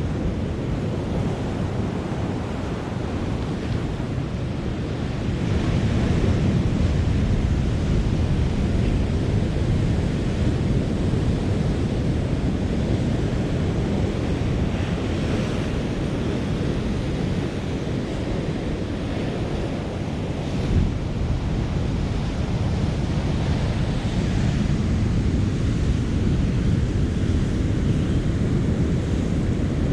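Ocean surf breaking on the beach, with wind buffeting the microphone; the wash swells a little louder about six seconds in.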